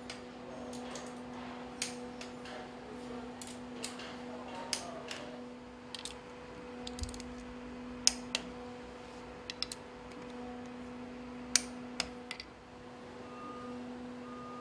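Hand tools clicking and tapping against a metal engine: irregular sharp metallic clicks, about a dozen, over a steady low hum.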